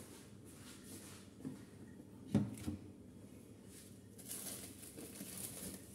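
Quiet kitchen handling sounds: a few soft knocks, the loudest about two and a half seconds in, and a light hiss in the last couple of seconds.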